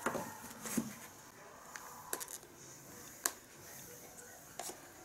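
Scattered light clicks and knocks from handling objects, about five in all, the sharpest one about three seconds in.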